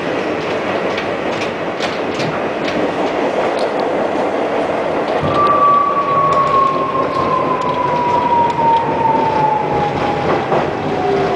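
NYC subway train running on the rails, wheels clicking over rail joints. About five seconds in, a whine starts and falls steadily in pitch as the train slows toward a station.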